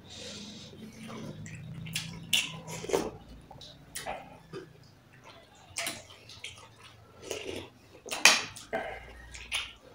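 Close-up eating sounds: irregular wet chewing and lip smacks as rice and meat are eaten by hand, with a few light clicks like a spoon against a bowl.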